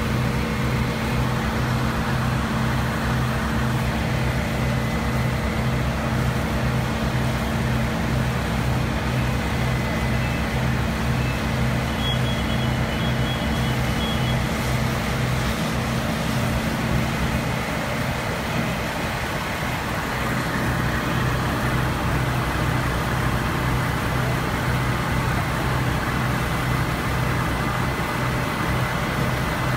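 Fire engines' diesel engines running steadily at the fireground: a loud, even drone with a regular low throb. The drone dips slightly a little past the middle. A few faint short high beeps sound about twelve seconds in.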